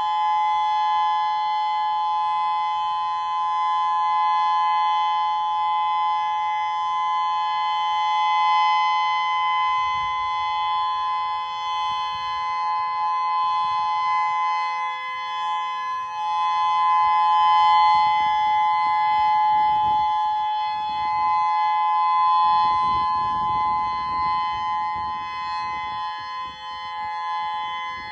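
Federal Signal Modulator 6048 electronic tornado siren sounding a steady tone: several pitches held together as one chord, with no rise or fall.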